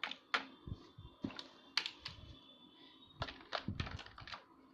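Small plastic toy figures tapping and clattering on a plastic building-block house, a string of irregular light clicks.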